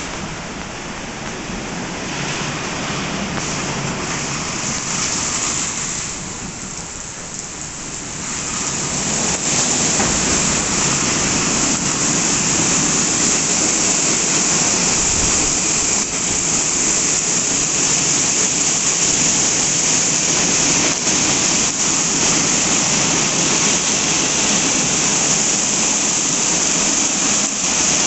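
WashTec SoftCare 2 Pro car wash in its brush-wash cycle: rotating brushes scrubbing the car under water spray, a steady rushing hiss of water. It grows louder about nine seconds in and then holds steady.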